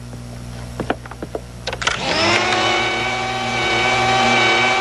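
A few light knocks, then an upright vacuum cleaner is switched on about two seconds in. Its motor spins up quickly and runs with a steady whine.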